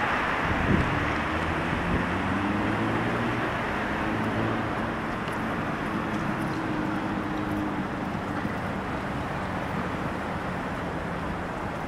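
Steady outdoor rush of traffic and wind, with a low engine hum that holds an even pitch from about a second in until near the end.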